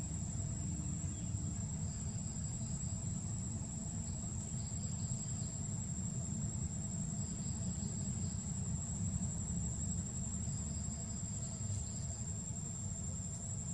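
Steady high-pitched drone of insects, with bouts of pulsing chirps coming and going every few seconds, over a steady low rumble.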